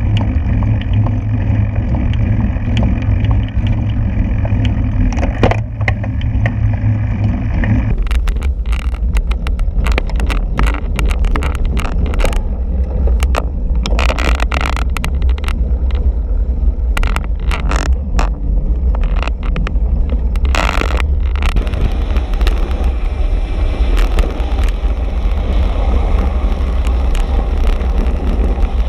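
Road racing bicycle riding at speed, heard from a handlebar-mounted camera: a steady rumble of wind on the microphone and tyres on tarmac. From about eight seconds in, a run of sharp clicks and rattles comes and goes until about twenty seconds in.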